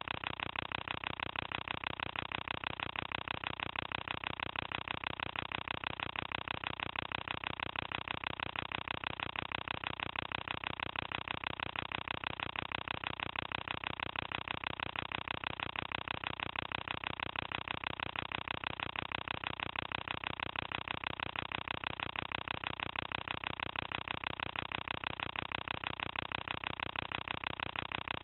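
Film projector running: a steady mechanical whirr with a fast, even clatter that does not change.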